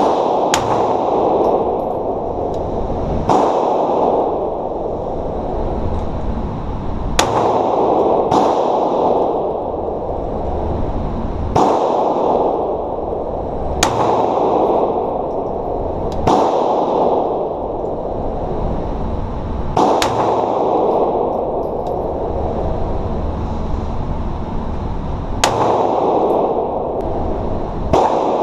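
Pistol shots fired one at a time, about ten of them a few seconds apart, each sharp crack followed by a booming echo that dies away over about a second in an enclosed indoor range.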